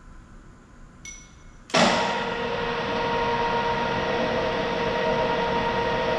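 A light metal clink about a second in, then the radial drill press's spindle drive starts suddenly and runs steadily with a loud hum and whine.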